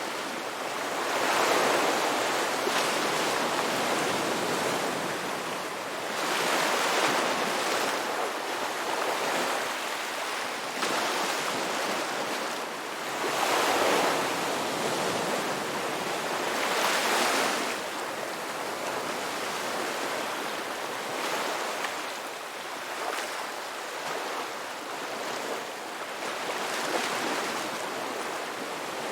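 Ocean waves washing ashore, surf surging and receding every few seconds, with several louder breakers in the first half.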